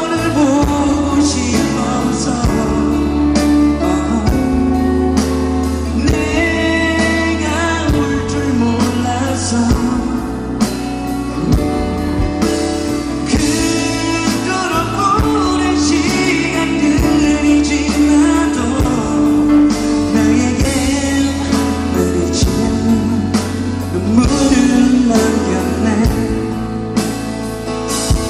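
A male singer singing live into a microphone, his voice wavering with vibrato, over instrumental backing with sustained bass and a steady drum beat.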